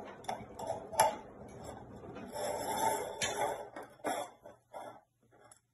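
Empty tin can knocking and scraping on a tiled floor as a cat pushes its head into it: a few sharp clicks, a sharper knock about a second in, a longer scraping stretch about two and a half seconds in, then lighter knocks that fade out.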